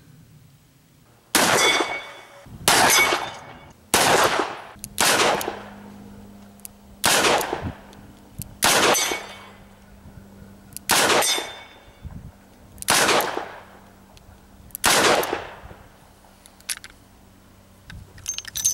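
Smith & Wesson Model 629 stainless .44 Magnum revolver fired nine times, loud single shots one to two seconds apart, each with a short echoing tail.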